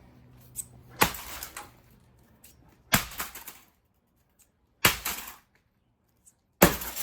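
Four heavy blows, about two seconds apart, smashing what is left of a Macintosh 512K computer, each with a brief clatter of breaking plastic and metal after it.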